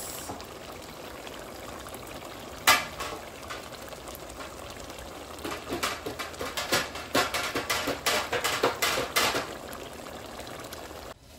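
Pot of beans and cow skin in oily sauce simmering on the stove: a steady hiss with bubbles popping and spattering, one sharp pop about a quarter of the way in, and a thick run of crackling pops after about halfway.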